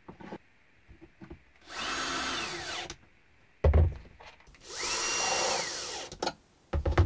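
Cordless drill-driver driving screws to fasten metal angle brackets to a wooden base plate: two short runs, each whining up to speed, holding, then winding down. Brief knocks from handling the brackets and plate fall between and after the runs.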